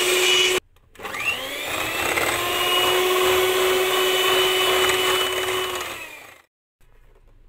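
Electric hand mixer whipping heavy cream, a steady motor whine. It cuts out briefly under a second in, spins back up with a rising whine, runs evenly, then winds down and stops about six seconds in, with the cream beaten thick.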